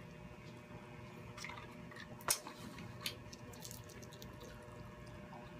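Small clicks and crackles of baked shrimp being peeled by hand and eaten, with one sharp click a little past two seconds in and a smaller one about three seconds in.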